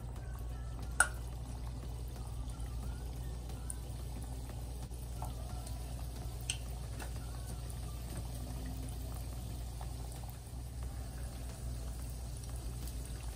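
Dough rings frying in hot oil in a stainless steel pot: a steady sizzling and bubbling over a low hum, with a sharp click about a second in and a fainter one about six and a half seconds in.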